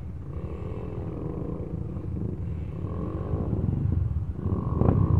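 Dirt bike engines running and revving in a shallow river crossing, the pitch rising and falling unevenly. A sharp knock comes near the end.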